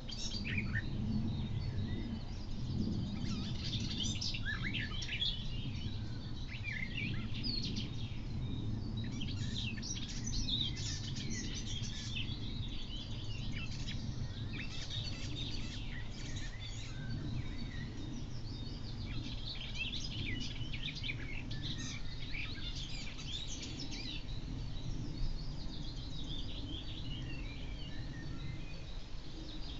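Songbirds chirping and singing, many short high calls and trills overlapping throughout, over a steady low background hum.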